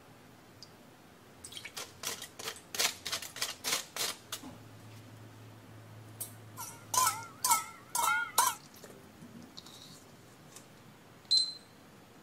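Metal spoon clinking and scraping against a small stainless steel pan while a liquid marinade is stirred: a run of quick light clinks, then a few louder ringing scrapes. Near the end, one short high beep from a digital kitchen timer.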